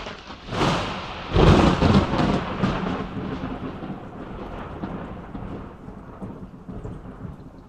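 Cinematic crash sound effect: a short burst, then a louder crash about a second and a half in, trailing off in a long rumble that slowly fades.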